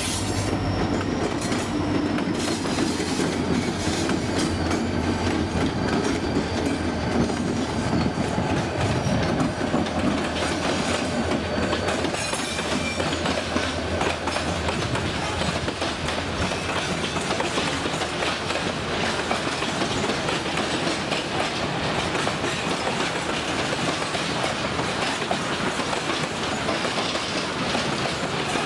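Freight train wagons rolling past, with the steady clatter of wheels over the rails.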